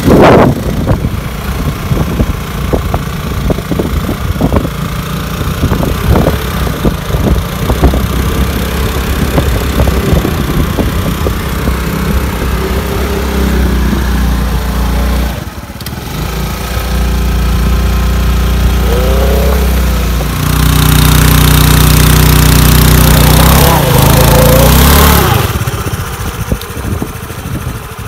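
Hero Maestro scooter's single-cylinder engine running and revving in bursts while the scooter is stuck in deep mud, trying to drive out; the longest, loudest rev comes about two-thirds of the way through, then it falls back toward idle.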